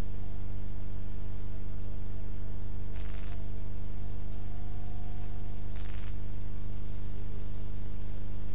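A steady low hum with a buzzy stack of overtones, broken by two short high-pitched beeps about three seconds apart.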